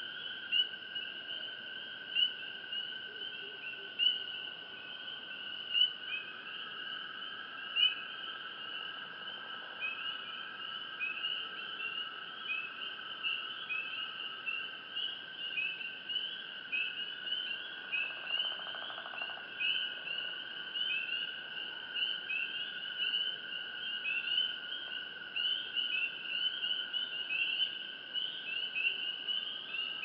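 Night chorus of crickets: a steady high trill under a dense run of rapid chirps, with a louder call repeating about every two seconds for the first several seconds.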